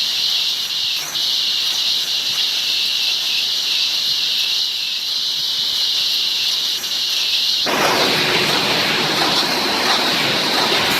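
Cage welding machine running: a steady, high hiss, joined suddenly about eight seconds in by a louder, fuller rushing noise, with a couple of faint ticks.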